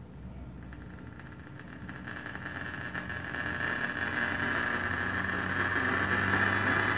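RCA Victor X551 tube AM radio putting out a steady low hum with static hiss, growing steadily louder.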